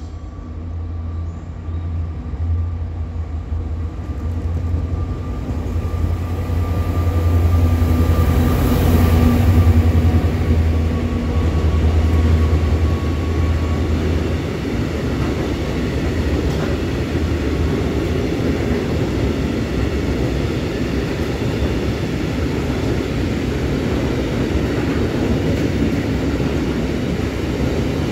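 Freight train passing at speed: the locomotive approaches with a low hum that grows loudest about a third of the way in and fades after it goes by. A long line of covered grain hopper wagons then rolls past with a steady rumble of wheels on rails.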